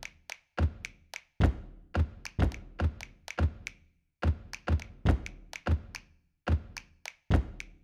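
Sparse drum beat with no other instruments: deep kick-drum thumps with sharp, crisp hits on top, about one heavy hit a second with lighter hits between and short silent gaps.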